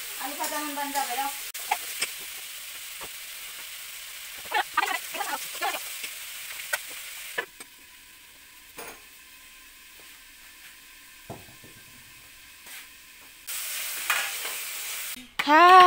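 Food sizzling in hot oil in a kadhai on a gas stove, with a spatula stirring and a few metal clicks. About seven seconds in the sizzle drops to a faint hiss, as if the pan has been covered, and it comes back loud about 13 seconds in with the pan uncovered and being stirred.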